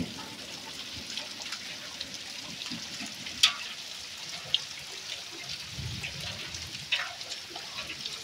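Heavy rain with hail falling on wet, muddy ground: a steady hiss with a few sharp ticks, the loudest about three and a half seconds in.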